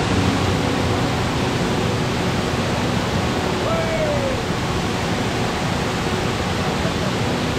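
Waterfall pouring over rock ledges into a pool: a steady, loud rush of falling water.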